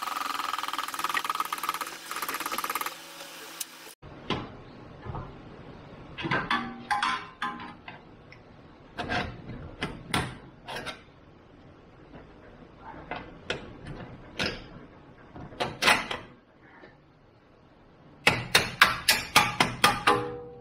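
A steady mechanical whirr for the first few seconds that cuts off abruptly. Then scattered metal clinks and knocks of a hand wrench on the rear suspension bolts, and near the end a quick even run of ratchet clicks, about four a second.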